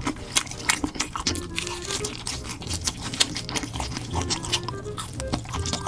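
Close-miked crunching and chewing of crispy fried chicken, many crisp bites in quick succession, over background music with a simple stepping melody.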